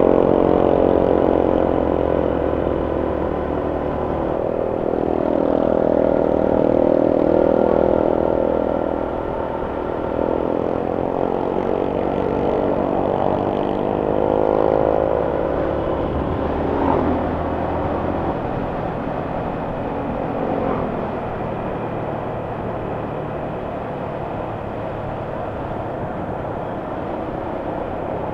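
Motorcycle engine running under way, its pitch rising and falling as the throttle is rolled on and off through the bends. It becomes steadier and a little quieter in the last third.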